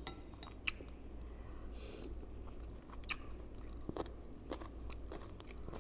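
Close-miked chewing of bakso meatballs with crunchy cartilage, with a few sharp crunches scattered through.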